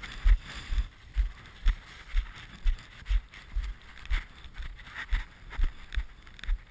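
Dog sled moving over snow behind its dog team: a steady run of low thumps, about two a second, over a faint hiss.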